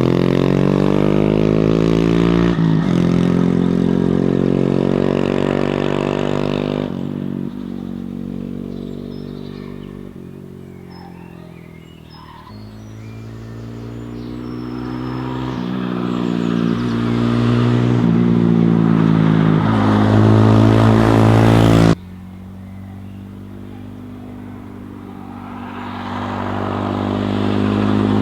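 Honda Monkey 125's single-cylinder four-stroke engine through a Takegawa RS aftermarket exhaust, riding past. The exhaust note fades away into the distance, then grows louder again as the bike comes back. It drops suddenly about two-thirds of the way through, then swells once more near the end.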